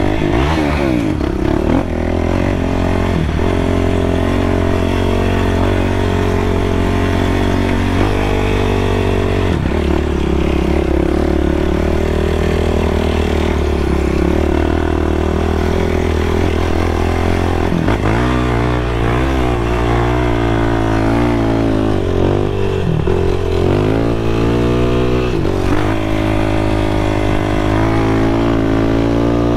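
Yamaha YFZ450R sport quad's single-cylinder four-stroke engine running hard under riding, its pitch rising and falling with the throttle and shifting in steps through gear changes.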